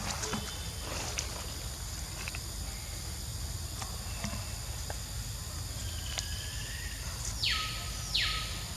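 Outdoor background with a steady high insect drone over a low rumble, a few faint clicks, and a short hiss of noise a little before the end.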